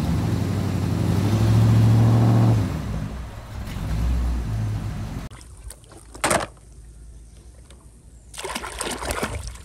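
Rally car driving fast along a gravel road and passing close by. Its engine is loudest about two seconds in, then fades away over the next few seconds as the car goes.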